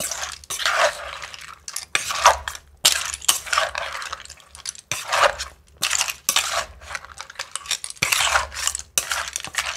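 Pestle and spoon stirring and tossing wet som tam in a mortar: repeated scraping strokes with light clinks, about two a second.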